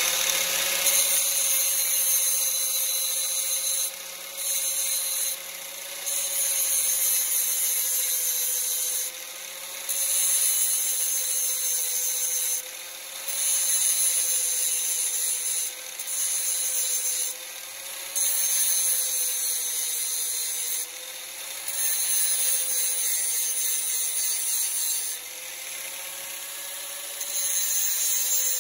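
Angle grinder sharpening the steel teeth of a hedge trimmer blade. The motor runs with a steady whine, and a harsh grinding hiss comes in about nine separate passes of one to three seconds, with short breaks as the wheel moves from tooth to tooth.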